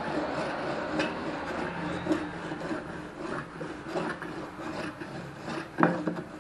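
Homemade wooden hand plane pushed in repeated strokes along a wooden board, its blade shaving the surface flat, with a few sharper knocks among the strokes.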